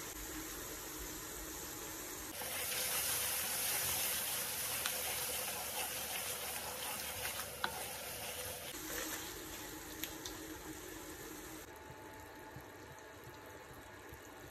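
Bean and chicken curry sizzling in a metal pan while a wooden spoon stirs it, a steady hiss that grows louder from about two seconds in to about nine seconds. A couple of sharp knocks come near the middle, and the sizzle fades toward the end.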